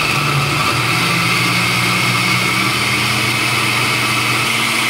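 Countertop blender running at full speed, puréeing boiled tomatillos and chiles into a smooth salsa verde. Its steady motor hum rises slightly in pitch about halfway through and again near the end.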